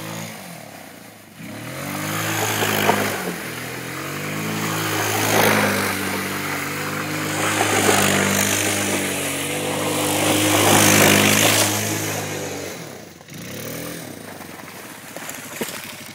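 Kymco 150 quad's single-cylinder engine revving up and down in four or five surges as the quad slides on dry leaf litter, the tyres churning up a crunching hiss of leaves with each burst. The engine eases off near the end.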